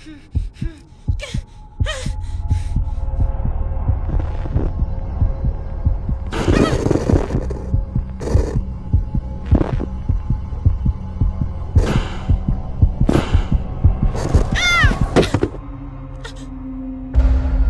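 A rapid, pounding heartbeat sound effect over a low droning hum, with several sharp bursts of noise breaking in over the middle of the stretch and a brief wavering pitched sound near the end.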